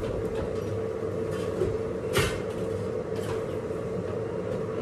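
Steady hum with one sharp knock about two seconds in.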